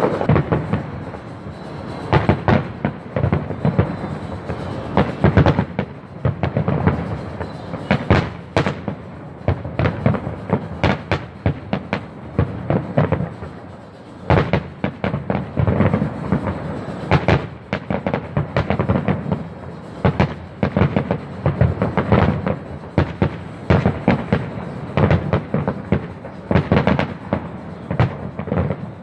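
Aerial fireworks display: a rapid, irregular series of shell bursts and bangs, many in quick succession, over a continuous rumble.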